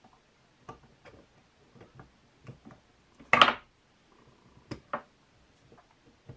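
Light metallic clicks and taps from handling a forged piston, its rings and ring-expander pliers on a workbench, with one louder clatter of metal about halfway through.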